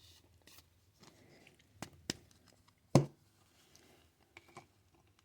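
Trading cards being handled: a few light clicks and taps, the sharpest about three seconds in, with fainter ticks around it.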